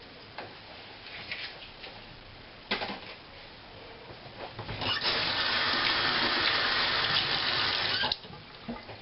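Kitchen tap running for about three seconds and then shut off abruptly, after a sharp knock a few seconds earlier.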